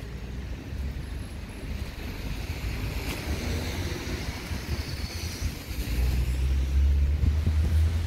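Wind buffeting the phone's microphone outdoors in rainy weather: a low rumble that grows stronger about two seconds before the end.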